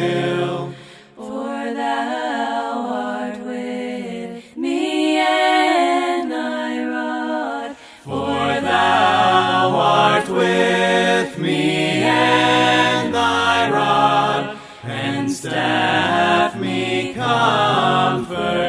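Unaccompanied voices singing a slow hymn, with lower voices joining in harmony about eight seconds in.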